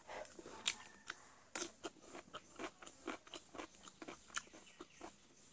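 Close-up chewing of cooked chicken: a run of sharp, irregular crunches, about two to three a second.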